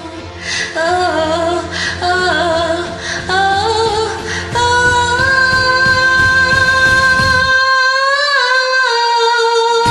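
Woman singing along to a karaoke backing track: short notes that step up and down, then one long held note through the second half, as the backing's low end drops out near the end.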